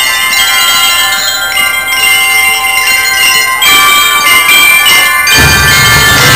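Bell lyres of a drum and lyre corps playing a melody in many ringing metallic notes. About five seconds in, the drums come in and the whole band grows louder.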